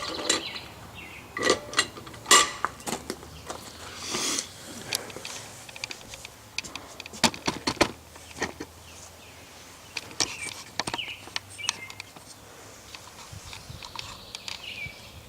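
Irregular clanks and knocks of steel tools and bar stock being handled at a blacksmith's forge and anvil, some of them ringing briefly, over a faint steady hum.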